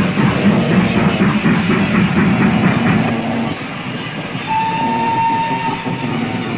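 GWR King-class steam locomotive No. 6000 King George V working, with a rhythmic exhaust beat for the first three seconds. About four and a half seconds in, a single steady whistle blast lasts a little over a second.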